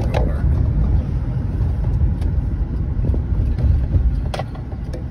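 Car driving, heard from inside the cabin: a steady low rumble of engine and road noise, with two brief sharp knocks, one at the start and a louder one about four seconds in.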